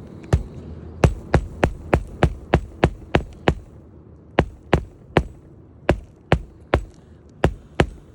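Hammer driving roofing nails into a new asphalt 3-tab shingle: a run of sharp knocks, about three a second, in groups with short pauses between them.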